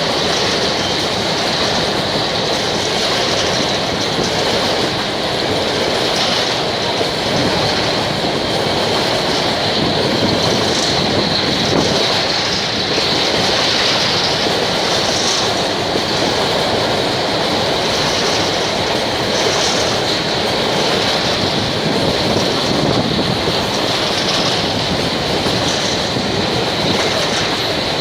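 Freight train of hopper wagons rolling past at a steady pace, wheels clacking over the rail joints, with a steady high squeal from the wheels on the rails.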